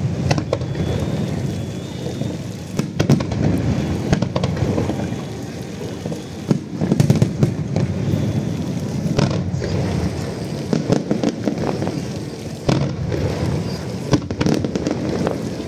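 Aerial fireworks bursting in quick succession: a continuous low rumble of booms with sharp cracks and crackling, in several louder clusters.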